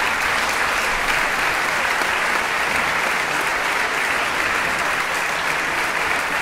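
Concert audience applauding steadily, a dense even clatter of many hands clapping.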